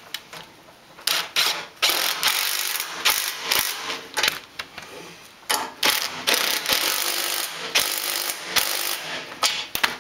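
Socket ratchet clicking in quick runs, again and again, as it tightens the 13 mm bolts holding a snow blower's runner (skid shoe).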